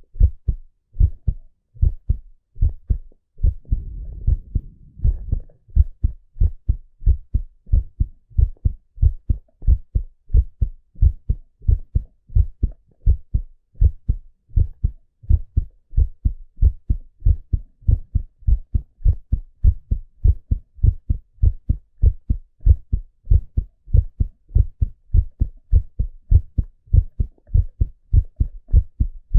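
A man's heartbeat heard through a stethoscope: steady, regular low beats, with a brief low rushing noise about four seconds in.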